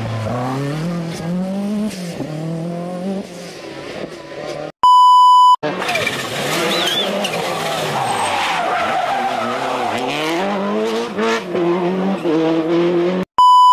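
Rally car engines revving hard, rising in pitch through each gear and dropping at the shifts. From about six seconds in it is a Subaru Impreza WRC's turbocharged flat-four driven flat out past the camera. A steady, high beep cuts in twice for under a second, about five seconds in and near the end.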